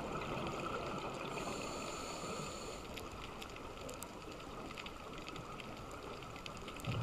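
Underwater sound picked up through a dive camera's housing: a steady hiss with scattered faint clicks, and a scuba regulator hissing on the diver's inhale for about a second and a half, starting about a second and a half in.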